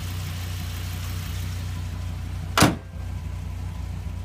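Dodge Viper ACR's V10 idling steadily, and a bit over halfway through the hood is slammed shut with one loud bang.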